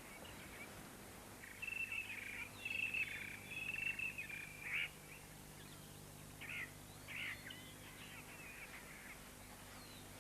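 Birds calling in short, broken chirping phrases, busiest in the first half, with a few more calls a few seconds later, over a faint steady hum.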